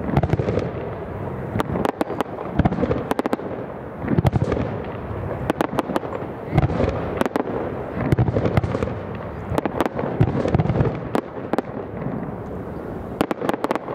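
Aerial fireworks shells bursting in a rapid barrage: clusters of sharp cracks several a second over deep booms, the low booms trailing off between the clusters.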